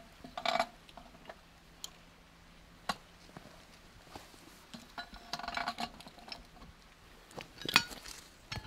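Scattered metal clicks and knocks of a backflow prevention assembly being turned the last turn onto its threaded pipe fitting, with a short clattering, ringing stretch midway and the loudest knocks near the end.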